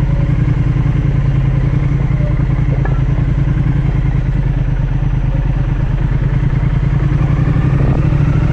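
Triumph Speed Twin 1200's parallel-twin engine running steadily at low revs as the motorcycle pulls away and rolls slowly along a street.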